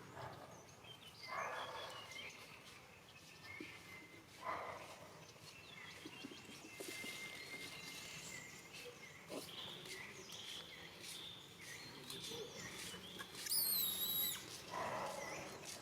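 A high, quavering animal call, under a second long, near the end, over faint chirps and a few brief rustles.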